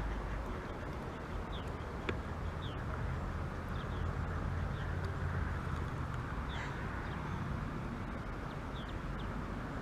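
Steady outdoor background noise with short, high bird chirps repeating about once a second, and a single sharp click about two seconds in.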